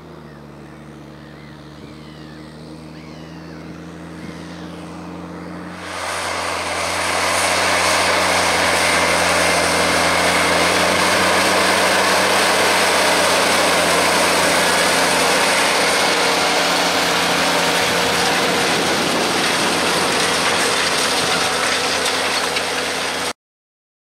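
Fendt 820 Vario tractor's six-cylinder diesel engine working hard under load while pulling a six-furrow plough up a slope. It is steady and growing louder at first, then jumps to a loud, close engine drone with a rushing noise over it from about six seconds in, and cuts off suddenly near the end.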